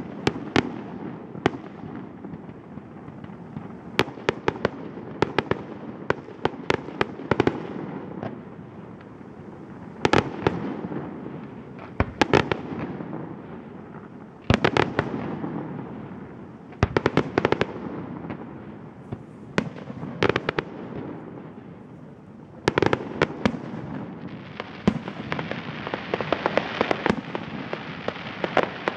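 Fireworks display: aerial shells bursting in quick clusters of sharp bangs, each cluster trailing off in an echo. In the last few seconds a dense, continuous crackling sets in under the bangs.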